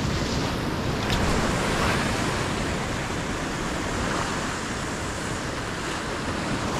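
North Sea surf breaking on the rocks with wind blowing across the microphone: a steady, loud rush of noise.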